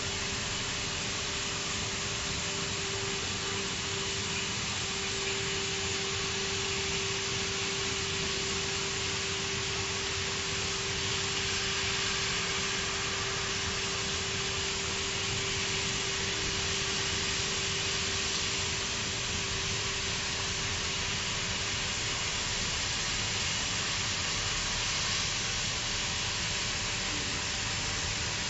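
CNC profile-cutting torch cutting through a steel plate: a steady, even hiss, with a thin steady humming tone that fades out about three-quarters of the way through.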